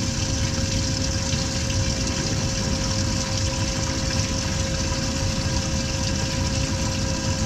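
A boat motor running steadily, a constant hum over a rumble and a steady hiss.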